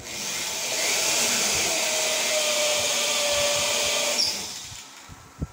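Corded electric drill running steadily for about four seconds, driving a screw up through the ceiling board into its steel framing, then winding down. A short knock near the end.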